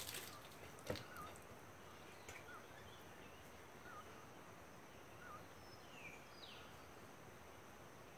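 Faint garden ambience with a few short, distant bird chirps scattered through and a pair of falling whistles a little past the middle, plus a single sharp tap about a second in.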